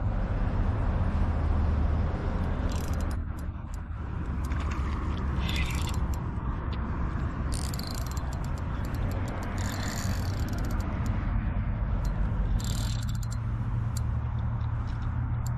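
Spinning reel being cranked, its gears whirring and clicking, with several short hissy bursts over a steady low rumble.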